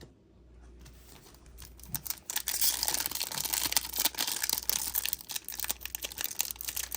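Foil Pokémon booster pack wrapper being crinkled and torn open, a dense rapid crackle that starts about two seconds in.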